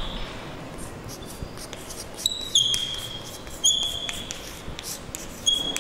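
Writing on a board: light taps and several short, high squeaks of the writing tip as the teacher draws strokes, the squeaks being the loudest sounds.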